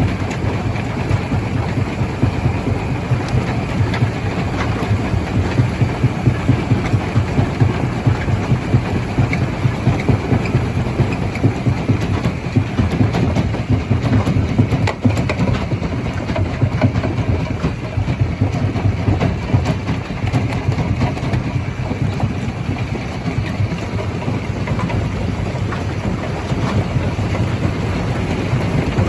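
Stone crusher machine running and crushing rock: a continuous heavy mechanical rumble with rapid, uneven pulsing and scattered sharp cracks of stone.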